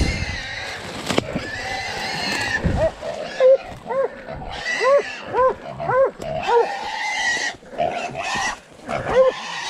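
A hog squealing in long wavering cries while dogs bay at it, with short barks about twice a second from about three seconds in, over crackling brush.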